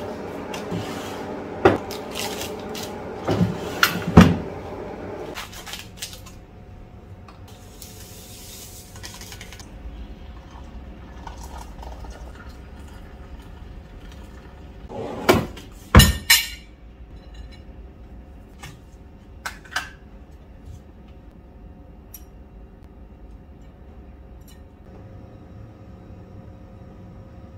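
Dishes and cutlery clattering: a few clusters of sharp clinks and knocks, the loudest around fifteen to sixteen seconds in, with lighter clinks in between.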